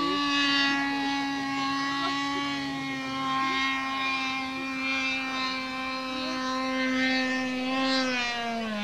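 High-pitched engine whine from a radio-controlled L-39 Albatros model jet's methanol-fuelled ducted fan in flight, held at a steady pitch. Near the end the pitch falls sharply.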